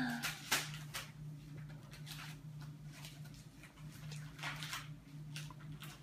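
Quiet room tone: a low steady hum with a few faint clicks and taps scattered through it.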